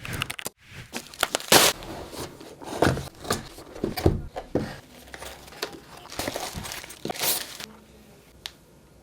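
A keyboard's retail packaging being opened and handled: irregular rustling and knocks, dying down near the end to a few light clicks.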